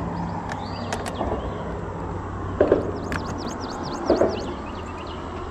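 Ambience on a small fishing boat: a steady low hum with a few soft knocks, two of them louder about two and a half and four seconds in, and a quick run of high chirps in the middle.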